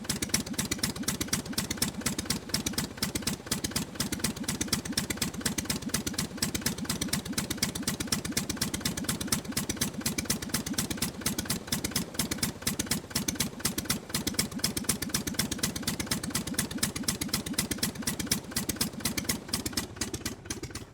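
Aircraft engine running steadily on a ground run, its firing heard as a rapid, even pulsing.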